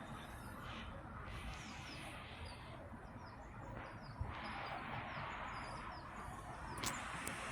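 Small birds chirping: short, high, falling notes repeated many times over a steady low rumble, with a couple of sharp clicks near the end.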